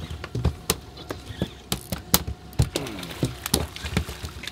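Irregular sharp clicks and knocks from handling a spinning rod and reel while a hooked mahi is reeled in to the boat, with a brief falling pitched sound near the middle.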